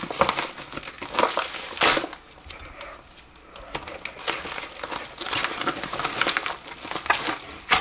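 Yellow padded mailing envelope being torn open and pulled apart by hand, its paper crinkling and crumpling in irregular bursts, with a quieter spell in the middle.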